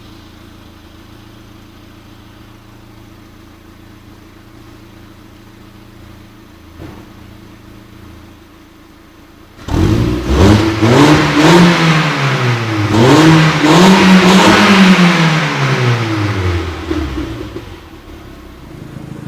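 Ford Fiesta ST's 1.6-litre turbocharged four-cylinder through a Remus cat-back exhaust, idling steadily, then about ten seconds in revved hard two or three times in quick succession, the pitch climbing and falling, before settling back to idle near the end.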